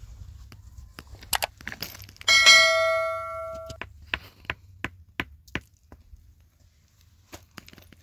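A sharp strike about two seconds in that rings on like a bell, several clear tones fading over about a second and a half, among scattered knocks and taps.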